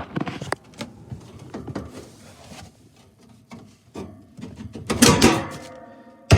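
Irregular knocking and clattering of hard parts being handled, with a loud clang about five seconds in that rings on briefly, and a sharp knock near the end.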